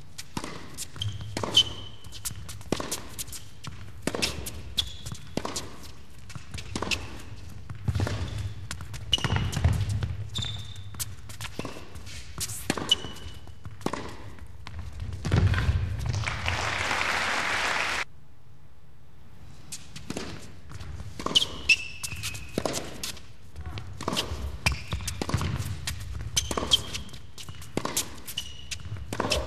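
Tennis rally: a tennis ball being struck by rackets and bouncing on the court, sharp knocks about a second apart. Just past halfway comes a burst of applause that cuts off suddenly.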